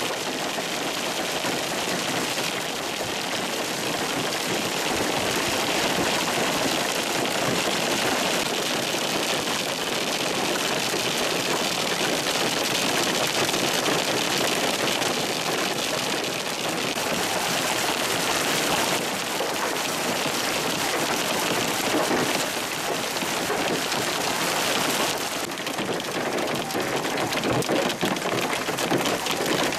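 Hailstorm: a dense, steady patter of hailstones hitting the ground and grass.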